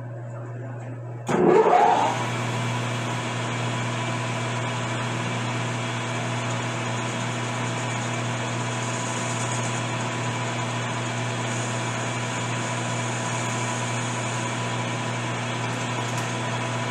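Metal lathe switching on about a second in, then running steadily with a low hum and several steady whining tones as its four-jaw chuck spins, while a shallow relief cut is fed in behind the rifle barrel's shoulder threads.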